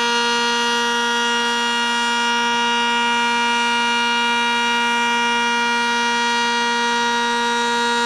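Sentry 10V outdoor warning siren sounding its steady alert signal, holding one loud, unwavering pitch.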